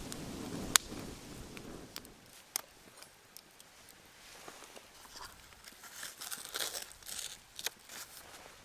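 Wood campfire crackling, with sharp scattered pops. About six seconds in, a stretch of crinkly rustling.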